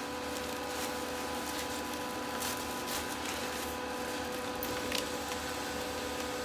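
Steady hum of a vertical baling press's hydraulic power unit running, with a few short rustles of plastic wrap being handled around the bale.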